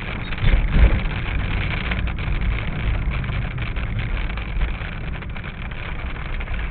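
Car driving in heavy rain, heard inside the cabin: a steady low rumble of engine and tyres with rain pattering on the windshield, and a single low thump about half a second in.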